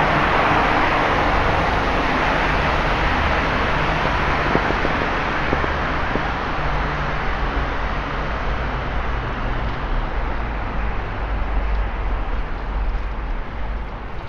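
Road traffic on a wet, flooded road: a loud hiss of tyres and water spray that slowly fades over the first several seconds, with a low engine rumble growing stronger later.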